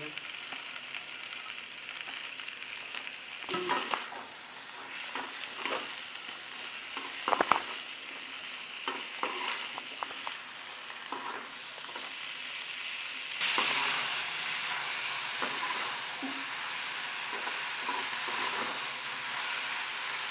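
Chopped onions, tomatoes, garlic and green chillies sizzling as they fry in a steel kadai, with a metal spatula scraping and knocking against the pan as they are stirred. The sizzle grows louder about two-thirds of the way through.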